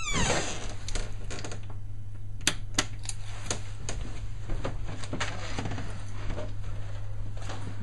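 Irregular sharp clicks and light knocks, a few each second, over a steady low hum.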